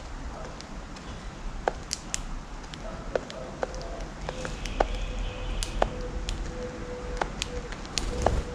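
Small birds pecking seeds off a hard surface: sharp, irregular clicks and taps. A steady hum comes in about three seconds in, over a low background rumble.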